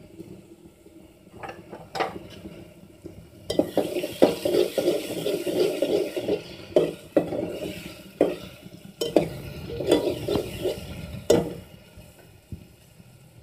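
Steel spoon stirring and scraping a masala frying in oil in an aluminium pot, with sharp clinks of the spoon against the pot and the oil sizzling. The stirring starts about two seconds in and stops about two seconds before the end.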